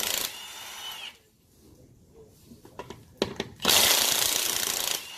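Power impact wrench breaking the wheel's lug nuts loose in two bursts. One ends just after the start and one lasts about a second and a half near the end. A few short clicks come just before the second burst, and each burst fades into a brief whine as the tool spins down.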